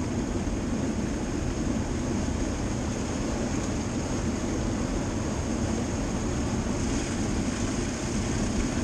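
Steady rushing of turbulent water pouring out at the bottom of a spillway into the river, an even, unbroken rush.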